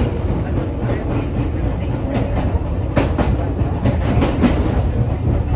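Electric train running along the track, heard from inside the driver's cab: a steady low rumble of the wheels, with several sharp clicks as they cross rail joints, the loudest about three seconds in.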